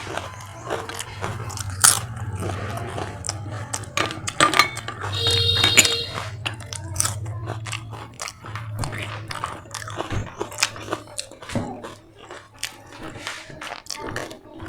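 Close-miked eating: repeated crunchy bites and chewing, with many short sharp crunches, over a steady low hum that fades out about two-thirds of the way through.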